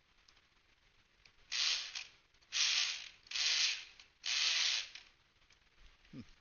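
Pick gun buzzing in four short bursts of about half a second each, its vibrating needle rattling the pins inside a Kwikset deadbolt cylinder to bounce them to the shear line.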